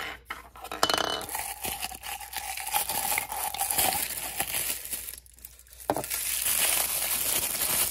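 Clear plastic shrink-wrap crinkling as it is torn and peeled off a small plastic toy cauldron, with a short lull about five seconds in before a denser stretch of crinkling.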